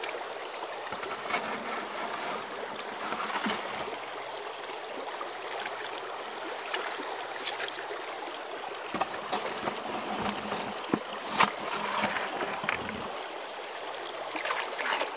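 Creek water rushing steadily through a stream sluice box and spilling off it, with a few sharp clicks scattered through the flow.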